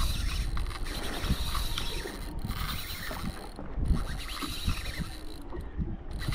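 Spinning reel's drag ticking as it gives line to a large tuskfish pulling hard on a bent rod, under steady wind noise on the microphone.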